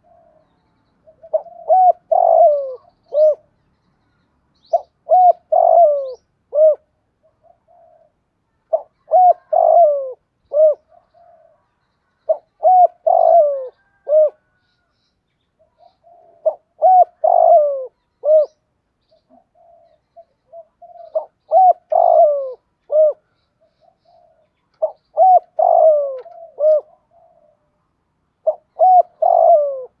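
Spotted dove cooing its song: a phrase of several coos about every four seconds, eight times over, with soft low notes between the phrases.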